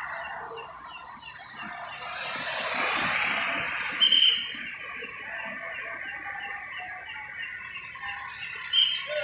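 Traffic whistle blown in two short, shrill blasts, about four seconds in and near the end, over a steady hiss of rain and passing traffic.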